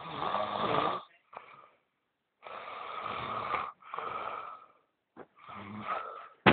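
A sleeping man snoring: about four snoring breaths, each roughly a second long, with short pauses between them.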